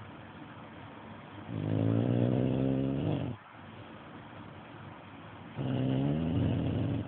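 A pet snoring in slow, regular breaths: two long, buzzing snores, one about a second and a half in and another near the end, each lasting under two seconds, with quiet breathing between.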